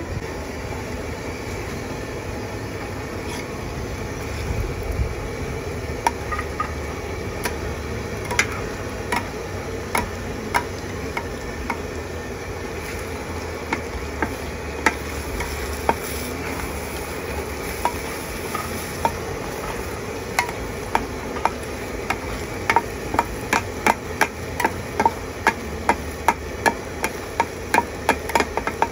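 Metal spatulas clacking against a large flat pan while stir-frying pad thai noodles and scrambling eggs, over a steady background hiss. Scattered clacks at first, then a quick, steady run of clacks in the last several seconds.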